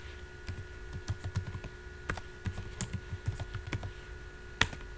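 Typing on a computer keyboard: a quick run of key clicks for about three seconds, then a single louder keystroke near the end, over a faint steady hum.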